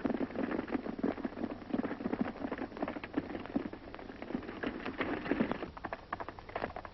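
Horses galloping: a dense, irregular patter of hoofbeats on a 1930s film soundtrack.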